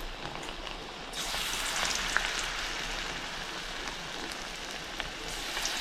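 Moong dal pakode (lentil fritters) deep-frying in hot oil, a steady sizzling hiss with fine crackles that grows louder about a second in.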